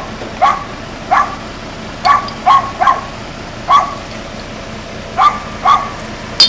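A dog barking repeatedly in short single barks, eight or nine in all, with a pause of about a second and a half in the middle. A sharp click comes right at the end.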